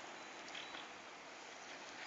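Faint, steady outdoor background hiss with a few soft, brief clicks.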